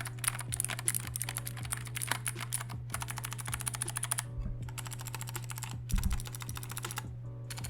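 Keys being pressed rapidly on a GK61 60% mechanical keyboard with clicky Gateron Blue switches, a fast run of sharp clicks with a few short pauses. There are two dull thumps near the middle and a steady low hum underneath.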